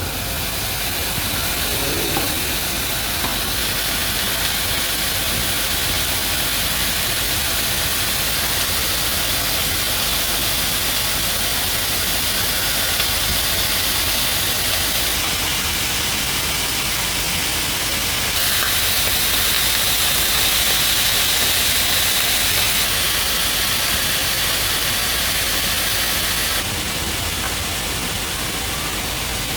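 Food sizzling in a hot frying pan: a steady hiss whose tone shifts slightly a few times.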